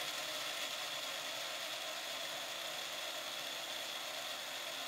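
Countertop electric blender running steadily, its motor whirring with a constant high whine as it purées chillies, garlic, coriander and liquid into a smooth sauce.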